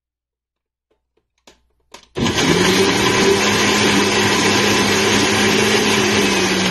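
Wilfa countertop blender switched on about two seconds in, after a couple of faint clicks. Its motor then runs loud and steady at an even pitch, blending snow and fruit chunks into juice.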